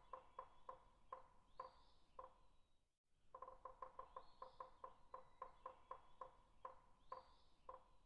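Faint series of short clicks, quick at first and then slowing. It stops about three seconds in and repeats the same way after a brief gap.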